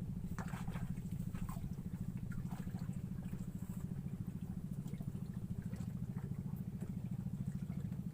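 A small engine running steadily at idle with a fast, even throb. Faint light clicks and rustles sit over it in the first few seconds.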